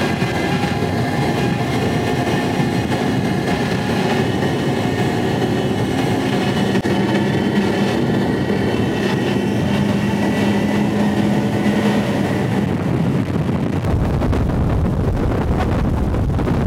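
Triple Seven Marine 627 supercharged V8 outboards running at high speed: a steady drone of engine tones over the rush of wind and water. Near the end it gives way to heavy wind buffeting the microphone.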